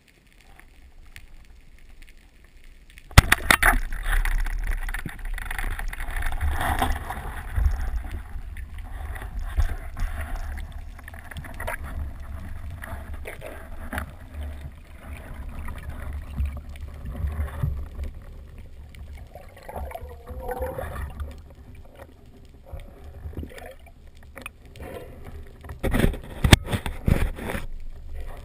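Underwater recording: a rubber-band speargun fires with one sharp crack about three seconds in, followed by rumbling water noise as the diver moves through the water. Near the end a cluster of sharp clicks and knocks comes from handling the gun and shaft.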